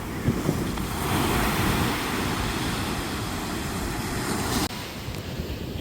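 Ocean surf rushing on the beach with wind rumbling on the microphone. The rush swells about a second in and stops suddenly near the end.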